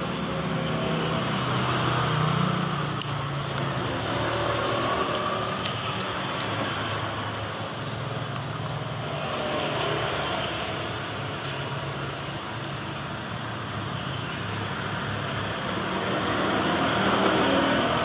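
Road traffic going by steadily, with vehicles swelling louder about two seconds in and again near the end.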